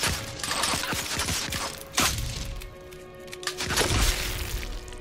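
Press cameras' flashbulbs going off in sharp pops, each with a short rush after it. The loudest come about two seconds in and near four seconds. They sound over music with held notes.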